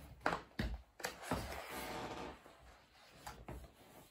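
Pages of a hardcover picture book being turned by hand: a few sharp paper flaps and knocks, then a longer paper rustle about a second in, and softer handling sounds near the end.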